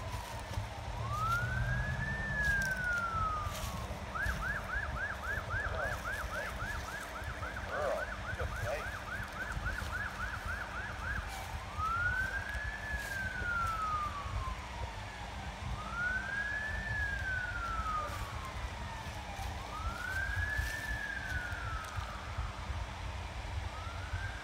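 Emergency-vehicle siren going through a slow rising-and-falling wail, switching about four seconds in to a fast yelp for some seven seconds, then back to the slow wail, over a low steady rumble.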